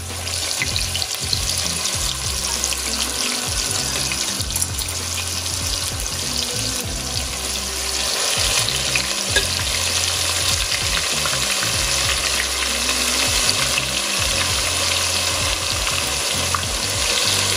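Marinated pork ribs shallow-frying in hot oil: a steady, loud sizzle with many small crackles and pops.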